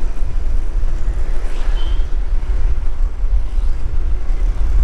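City road traffic heard from a moving vehicle, under a heavy low rumble of wind on the microphone. A short high-pitched beep sounds about two seconds in.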